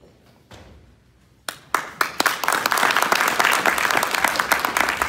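Audience applauding: after a near-quiet start, dense clapping breaks out suddenly about one and a half seconds in and carries on loudly.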